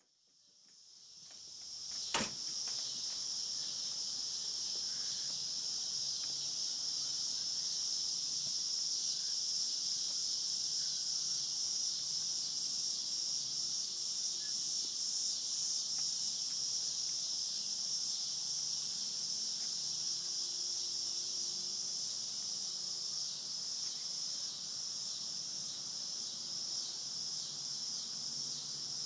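Steady outdoor insect chorus, a continuous high-pitched shrilling such as crickets and katydids make on a summer evening. A single sharp click comes about two seconds in.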